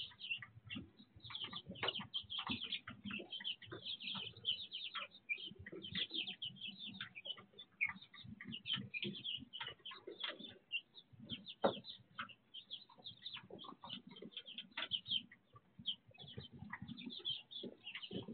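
A flock of young chicks peeping: many short, high chirps overlapping constantly, with a louder low thump right at the end.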